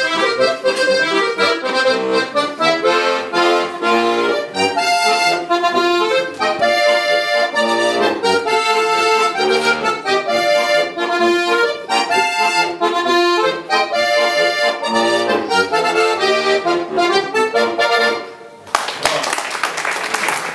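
Diatonic button accordion playing a lively traditional folk tune in quick runs of notes with a bass accompaniment. The tune ends about 18 seconds in, and applause follows.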